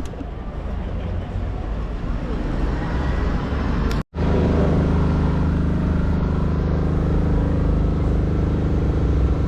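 City street traffic: vehicle engines running over road noise. About four seconds in, the sound cuts out for an instant, then a steady engine hum with a held pitch carries on.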